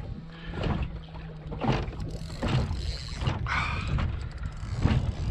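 Strong wind buffeting the microphone, with water slapping against the side of a small boat and a few brief knocks.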